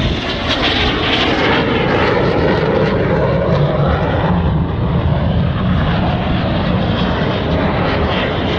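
BAE Hawk T1 jets of the Red Arrows flying past low, their jet engines loud and steady throughout.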